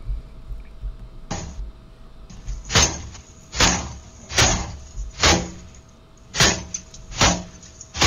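A front door being banged hard again and again, about seven heavy blows roughly a second apart starting about a second in, as a man tries to break in. Heard through a Ring doorbell camera's microphone, with a faint steady hum underneath.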